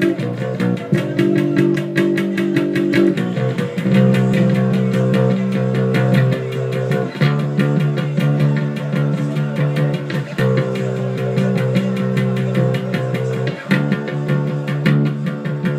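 Punk rock music: an electric bass guitar picked in a fast, steady, driving pulse with a band behind it, the notes shifting to new pitches every few seconds.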